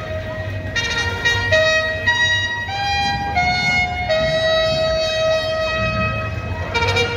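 Brass band playing long held horn notes that step from pitch to pitch over a steady low drum beat.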